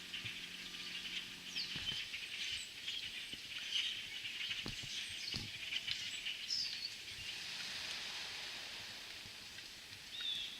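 A large flock of European starlings calling together: a dense, continuous chatter of overlapping chirps and whistles.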